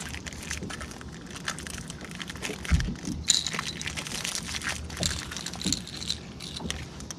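Small clicks, ticks and crackles of metal fishing pliers working tangled lure hooks out of a spotted bass's mouth. A dull thump comes a little under three seconds in, with a sharp click just after.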